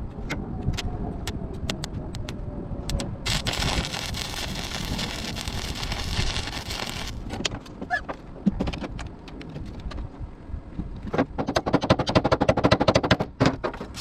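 Welding arc crackling in rapid pops: a run of about four seconds early on and a denser, louder burst near the end, with scattered sharp clicks between.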